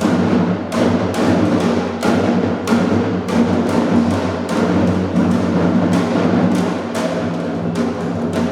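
Music led by drums, struck in a steady beat over sustained low pitched notes.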